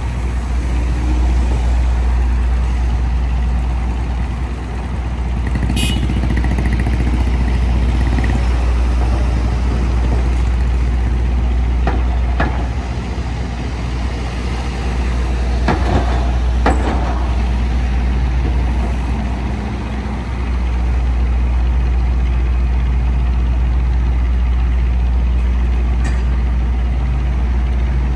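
Parked ice cream trucks' engines idling with a steady low drone, with street traffic passing. A few brief sharp sounds come through around the middle.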